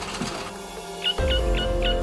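Background music: one piece fades down, and about a second in another starts, with a steady low drone under short high notes repeating about three times a second.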